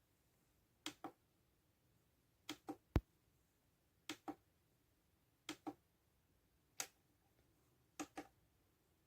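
Alarm clock buttons clicking, mostly in quick press-and-release pairs about one pair every second and a half, with a single louder knock about three seconds in.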